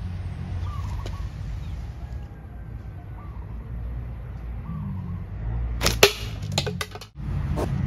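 A slingshot shot: a sharp snap about six seconds in, the loudest moment, followed by a quick run of clicks and one more about a second and a half later as the shot strikes around the target. A low steady rumble of wind on the microphone lies underneath.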